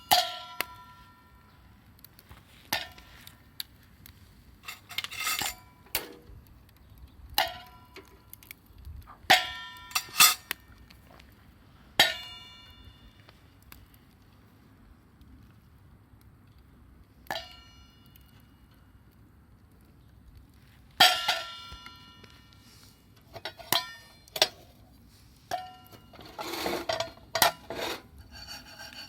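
Metal cookware or utensils being handled: scattered sharp clinks and clangs, many ringing briefly with a bell-like tone, with quiet gaps between and a cluster of busier clatter near the end.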